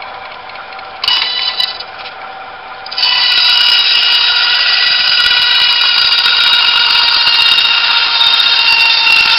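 Century Machine 9-inch bandsaw running with a steady whine. About a second in, a brief louder burst as the blade meets the wood; from about three seconds in, a loud, steady high-pitched whine as the blade cuts through a scrap of wood.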